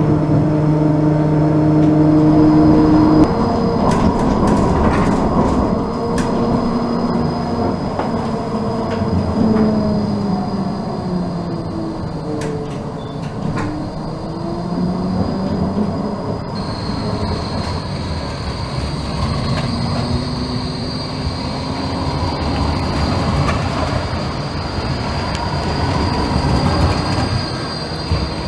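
Electric tram running on its rails, with a whine that glides up and down in pitch as it speeds up and slows, over steady wheel-and-rail rumble. A thin high whine runs throughout, and scattered clicks come through.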